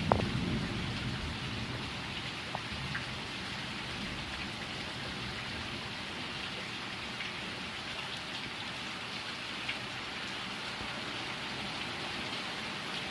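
Steady rain hiss with scattered faint drop ticks; a low rumble dies away about a second in.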